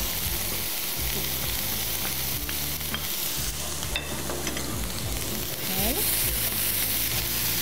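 Chopped onion sizzling in melted butter in a nonstick frying pan, stirred with a wooden spatula.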